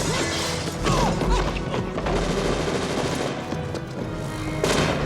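Action-film soundtrack: a dramatic score mixed with crashes and sharp bangs like gunfire, with a heavy impact near the end.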